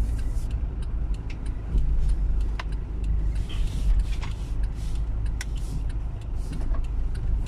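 Vehicle driving slowly over a rough, stony road, heard from inside: a steady low rumble with many scattered sharp clicks and knocks from the stones and the jolting.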